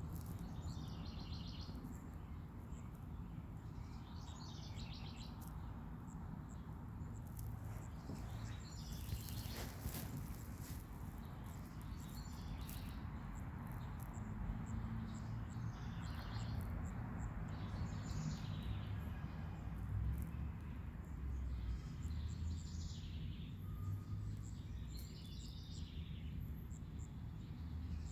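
Outdoor ambience: birds chirping in short bursts every few seconds over a steady low rumble, with one brief burst of noise about nine seconds in.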